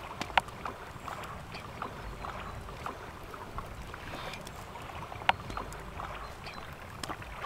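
Knife slicing through a log of compound butter on a wooden cutting board, with many small faint ticks and two sharp clicks of the blade meeting the board, about half a second in and near the five-second mark. Low steady wind and lake-water noise underneath.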